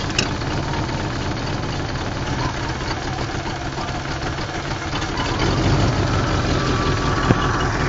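1986 Ford F-150's carbureted 302 V8 idling cold with the choke on. About five seconds in it runs a little louder and fuller as the idle speed is turned up.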